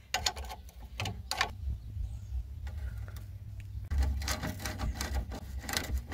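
Ratchet wrench clicking in quick repeated strokes as a bolt on a VW transmission housing is turned, starting about four seconds in. A few sharper knocks of the tool on metal come in the first second or so.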